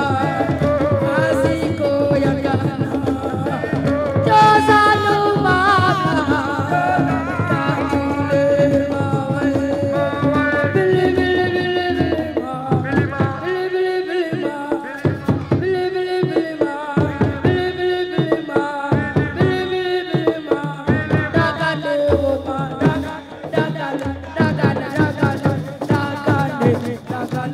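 Music with a voice singing over drums and percussion; in the second half the drum strokes stand out more plainly, with short gaps between them.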